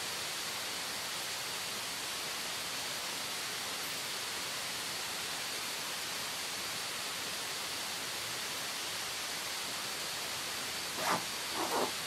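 Steady rushing of the waterfall and river, an even hiss with a faint high steady tone running over it. A few brief rustles near the end as a backpack is handled.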